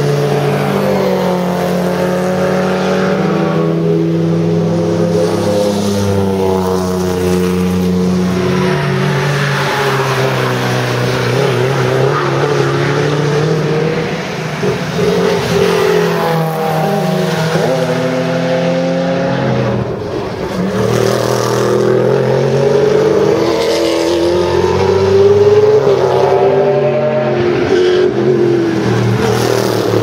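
Mercedes racing cars running hard on a circuit, first a classic fintail saloon and then a 190E touring car. Their engine notes climb under acceleration and drop sharply at gear changes or lift-offs, with several cars passing by and the loudest run near the end.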